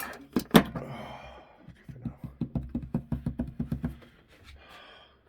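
Close handling noise: two sharp knocks under a second in, then a quick even run of about a dozen light ticks over about two seconds.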